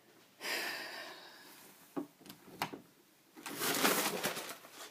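Plastic bags rustling and crinkling as a cat moves about with them caught on it like a cape: one burst about half a second in, a few sharp clicks, then a louder burst near the end.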